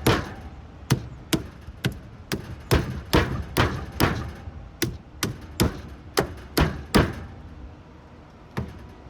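Hammer blows on a transformer's stacked core laminations, struck about twice a second to knock the layers loose, with a short pause before two last blows near the end.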